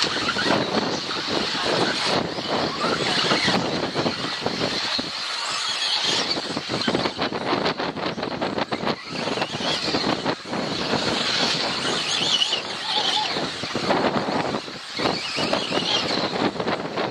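Radio-controlled off-road model cars racing around a track, a busy high-pitched motor and tyre noise that swells and fades several times as cars pass, with many short clicks and knocks.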